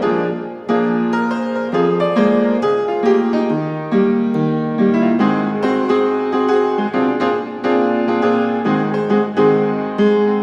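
Background music led by piano, notes struck in a steady rhythm.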